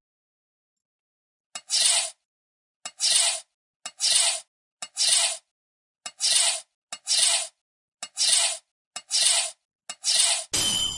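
A rasping scrape repeated nine times, each stroke about half a second long and begun by a short click, with dead silence between them. A louder burst of noise comes in near the end.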